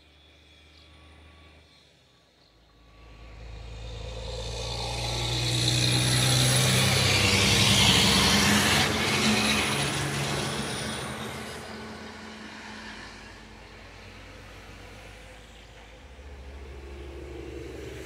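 Heavy tri-axle dump truck driving past on the road, its engine and tyre noise growing from a few seconds in, loudest about halfway, then fading away.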